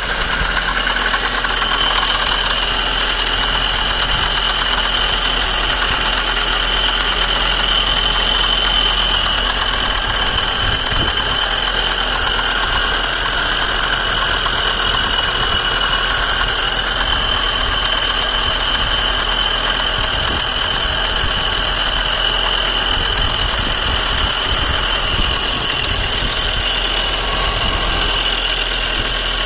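Engine idling steadily with a knock (стук) running through it, a sign of a mechanical fault in the engine.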